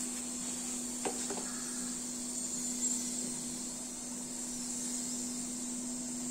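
Oil sizzling steadily on a nonstick tawa under a frying chapati ada: a steady high hiss over a low hum, with a couple of light spatula clicks on the pan about a second in.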